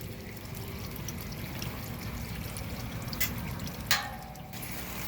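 Water trickling and sloshing in an aquaponics fish tank, with a brief louder splash about four seconds in.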